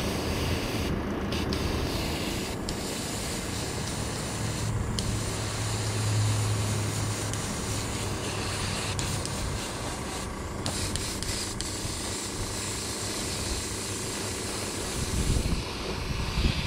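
Master Airbrush airbrush hissing as it sprays paint. The hiss drops out briefly a few times as the spray is stopped and restarted.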